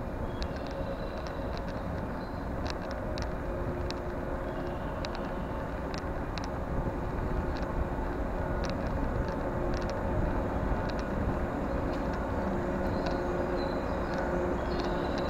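JR West 113 series electric train at the station platform: a steady low rumble with a constant two-tone mechanical hum, growing a little louder midway, and scattered brief high metallic clicks or squeaks.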